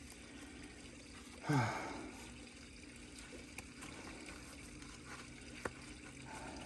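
A man's short sigh falling in pitch about a second and a half in, then a few faint clicks as the removed steering gear box is handled, over a low steady hum.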